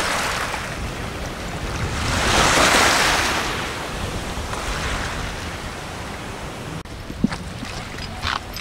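Small lagoon waves washing onto a coral-gravel beach, with wind on the microphone; the wash swells and fades, loudest about a third of the way in. A few short taps sound near the end.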